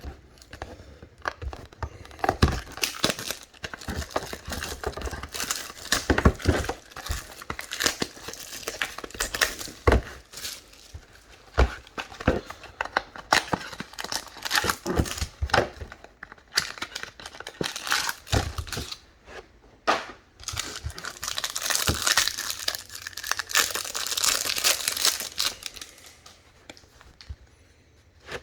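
Plastic wrapping on packs of sports trading cards crinkling and tearing as the packs are opened, with many small clicks and crackles of handling, and a denser stretch of crinkling about three-quarters of the way through.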